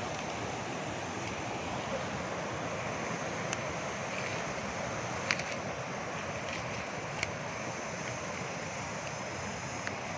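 Steady rushing water of a waterfall, with a few short sharp clicks over it, the loudest about five seconds in.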